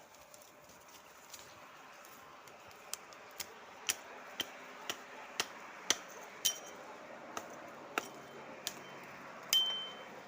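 A series of sharp knocks, about two a second, starting a few seconds in. Several leave a brief high ring, like struck metal or glass, and the last knock is the loudest.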